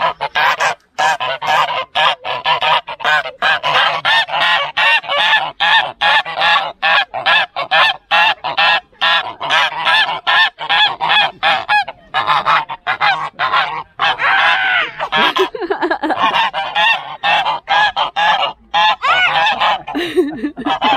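Several domestic geese honking rapidly and continuously, calling over one another while they crowd a fence to be fed.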